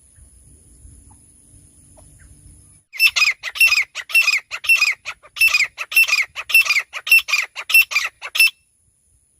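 Francolin (teetar) calling: a loud, rapid run of harsh, grating notes, each dropping in pitch, about three or four a second. The run starts about three seconds in after a faint low hum and stops abruptly about a second before the end.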